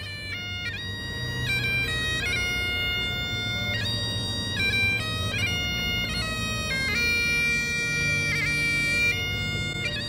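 Bagpipes playing a melody of held notes that step from pitch to pitch over the steady drone.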